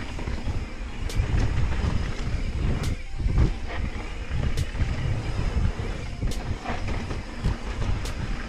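Mountain bike riding on a dirt trail: a steady rumble of wind on the microphone and tyres over the ground, with sharp clicks and rattles from the bike every second or two.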